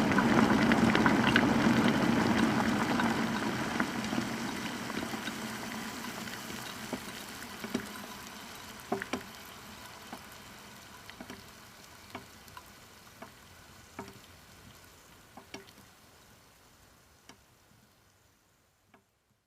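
Water boiling, its steady bubbling dying away over the whole stretch until only single bubble pops remain, about one a second and then fewer, the last one near the end.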